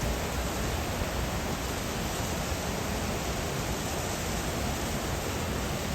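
Steady, unbroken rushing water noise, even across high and low pitches with no distinct events.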